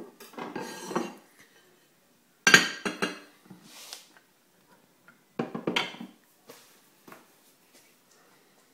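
A glass Pyrex bowl and a china plate clinking and knocking together while the bowl is turned out onto the plate and set down on a worktop. There is a sharp loud clink about two and a half seconds in, another cluster of knocks around five and a half seconds, and a few light taps after that.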